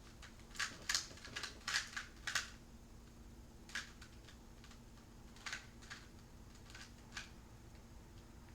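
Plastic 2x2 speed cube being turned as it is scrambled: a quick run of light clicks from the layers snapping round in the first couple of seconds, then single clicks spaced out.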